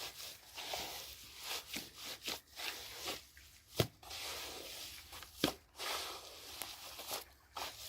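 Hands kneading and squelching a wet clay, sand and straw mix in a bucket, in irregular scrapes and squishes, with two sharp knocks, about four and five and a half seconds in.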